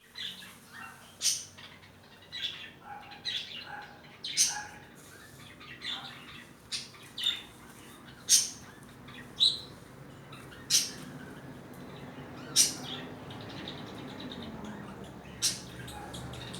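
Birds chirping: short, sharp chirps every second or so over a faint steady background.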